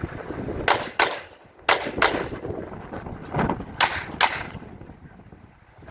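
Pistol shots fired in quick pairs: three double taps, each pair about a third of a second apart, spread over about four seconds.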